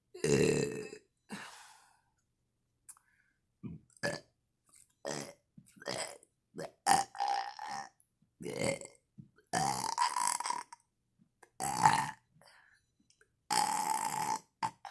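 A woman burping after a meal, over and over: about a dozen separate burps of different lengths, some short and some drawn out for about a second with a steady pitch, with short silences between. The first is the loudest.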